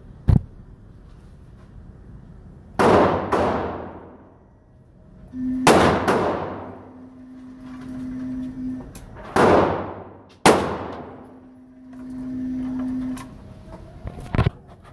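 Gunshots from other lanes in an indoor shooting range, a handful of shots a few seconds apart, each with a long echo off the walls. Between them, the electric target carrier's motor hums steadily twice for a few seconds as it runs the paper target in.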